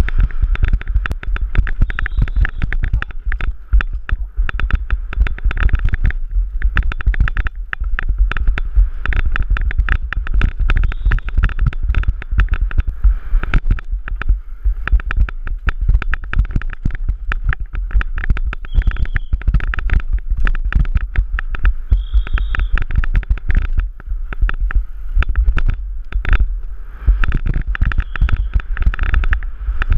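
Downhill mountain bike racing down a rough dirt track, heard through a helmet-mounted camera: a constant dense rattle of knocks and impacts over a heavy low rumble.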